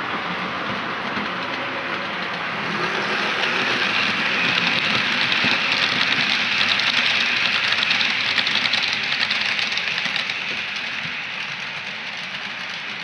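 Model train passing on the track: running noise with rapid clicking of wheels over the rail, growing louder from about three seconds in, peaking as the coaches go by, then fading away.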